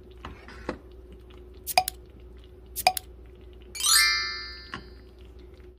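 A bright chime sound effect that sweeps up about four seconds in and rings out for about a second, from the pop-up subscribe banner. Before it come two pairs of sharp clicks, over a steady low hum.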